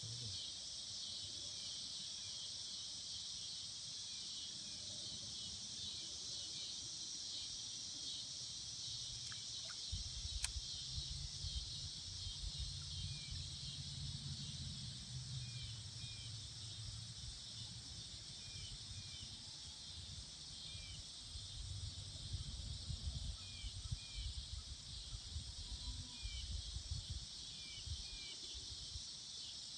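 Steady insect chorus of a summer evening by a stream: a dense high shrill hum with faint short chirps repeating. From about ten seconds in, low rumbling buffeting comes and goes underneath it.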